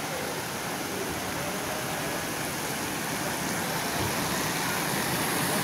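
Rain-curtain fountain: many thin streams of water falling into a shallow pool, making a steady, even splashing.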